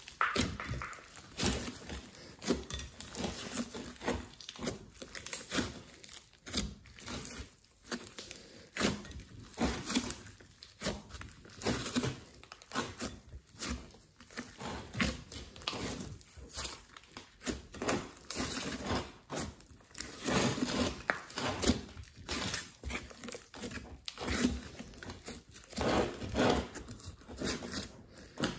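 Hands squeezing, stretching and folding a big mass of glossy slime mixed with clay and glitter. It gives an irregular run of sticky squishes and crackles, denser and louder in the second half.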